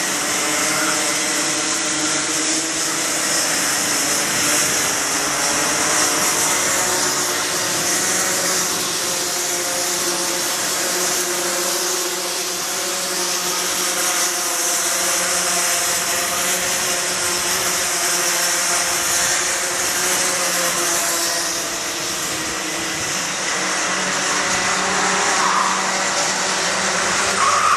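Several two-stroke racing kart engines buzzing at high revs, their pitches overlapping and wavering up and down as the pack laps the circuit.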